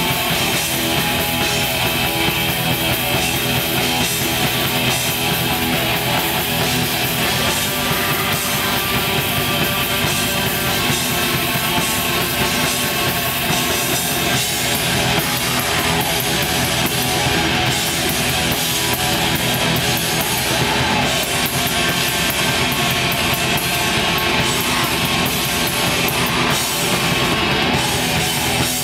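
Live black metal band playing: distorted electric guitars and drum kit, dense, loud and unbroken.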